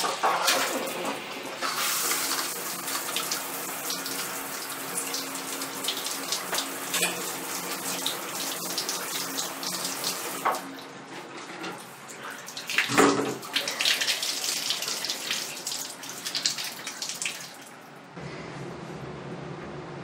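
Handheld shower head spraying water onto a rack of metal rods, rinsing it down. The spray eases briefly about halfway through and stops near the end.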